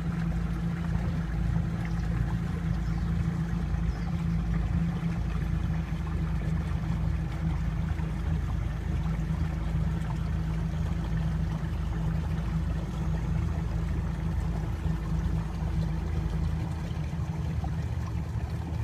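Steady low hum and rumble aboard a small electric catamaran under way: its pair of Caroute 1.5 kW brushless electric outboard motors running at cruising speed, with water moving along the hulls.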